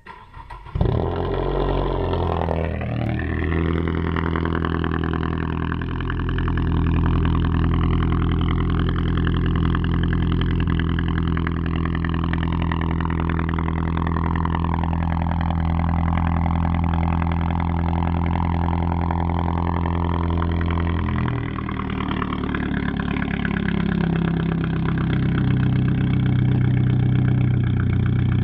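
Cold start of a 2013 Ford Focus 2.0-litre four-cylinder, straight-piped from the first catalytic converter back. The engine catches under a second in with a brief flare and then runs at a loud, steady cold idle with no revs. About 21 seconds in the idle note dips and shifts briefly before settling again.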